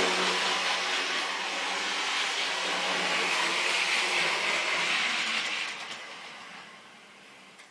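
Mehano HO-scale Thalys model train running on its track: a steady electric-motor hum with wheel noise on the rails, loud as it passes close, then dying away near the end as it moves off.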